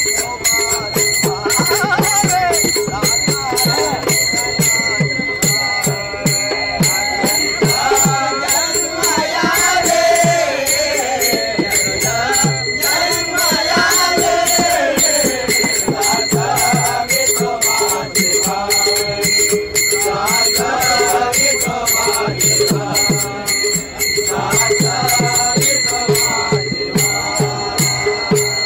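Men singing a Marathi devotional bhajan (abhang) in chorus, kept in time by small brass hand cymbals (taal) struck in a steady rhythm and ringing.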